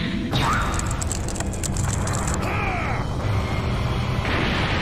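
Anime sound effect of an earthquake-power punch: a deep, continuous rumble with crackling through the first couple of seconds, swelling into a louder crash of shattering about four seconds in.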